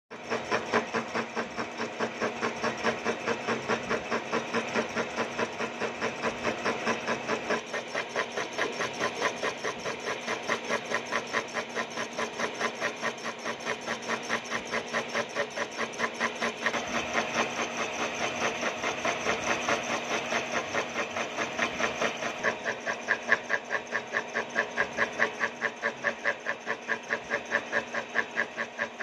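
Milling machine's disc cutter cutting into a metal workpiece: a steady machining noise that pulses evenly about three to four times a second as the cut goes on.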